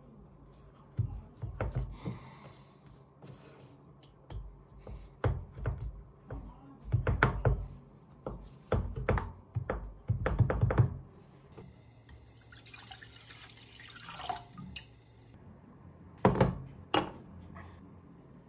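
A knife chopping through fish cake sheets on a wooden cutting board, in clusters of sharp thunks for the first ten seconds or so. The subtitles say the fish cake was frozen and almost tore rather than cut. Later comes a scraping hiss, then two loud knocks.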